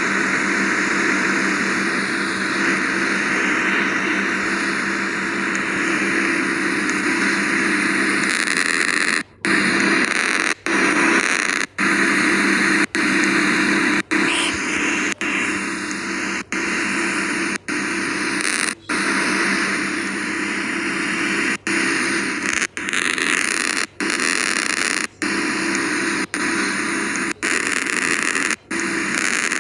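Air conditioners running: a steady airflow hiss over a low hum, broken by brief cuts to quiet roughly every second or so from about a third of the way in.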